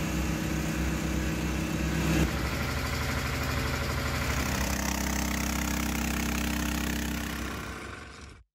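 Portable engine-driven water pump running steadily while pumping out floodwater. The engine note changes about two seconds in, and the sound fades out and cuts off just before the end.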